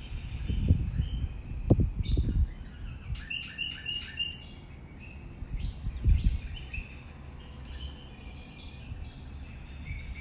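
Small birds chirping in short, quickly repeated notes, in clusters a few seconds in and again past the middle, over a low rumble, strongest near the start and about six seconds in.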